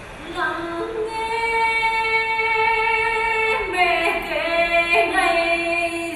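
A solo female voice singing long, held notes, entering about half a second in and gliding to new pitches in the second half.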